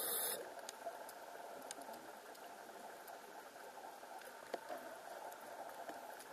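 Underwater reef ambience picked up through a camera housing: a faint steady hiss with scattered small clicks and crackles, one sharper click about halfway through.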